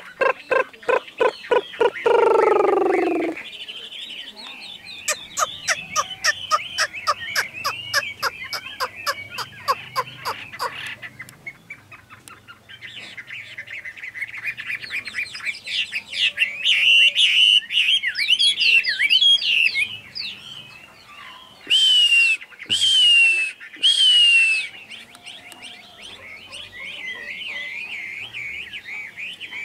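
Caged Chinese hwamei singing: a run of rapid repeated notes, then a loud, varied warbling song with whistled glides, including three loud falling notes a little after the middle. The first few seconds hold a lower, pulsing call.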